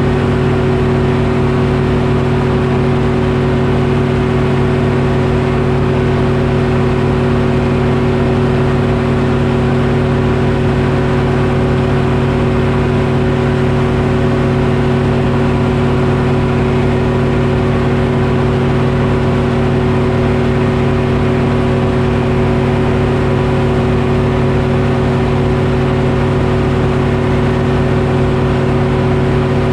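Detroit Diesel engine powering a sawmill, running at a constant speed with a steady hum.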